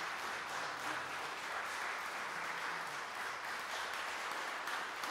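Audience clapping steadily in applause at the end of a performance.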